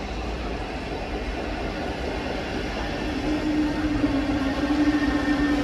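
Train in the station: a steady rumble, with a steady whine coming in about three seconds in and growing louder near the end.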